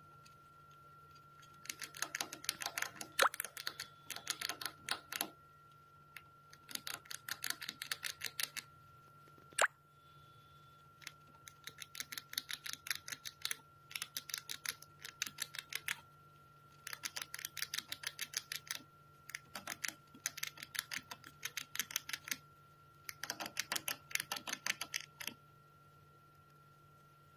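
A pet rat gnawing and crunching a hard biscuit held in its paws: rapid crisp clicks of its teeth biting off pieces, in bouts of a few seconds with short pauses between.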